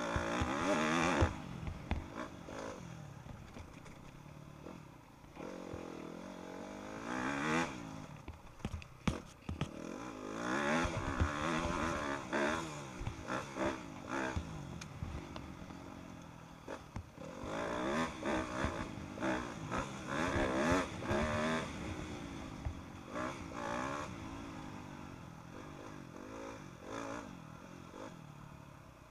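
Yamaha YZ motocross bike engine, heard from on board, revving up and dropping back over and over as the rider accelerates, shifts and rolls off along the track. Sharp knocks and clatter from the bike are mixed in.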